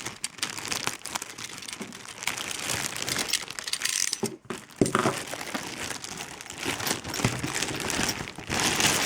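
Plastic packaging crinkling and rustling as it is handled, with many small crackles.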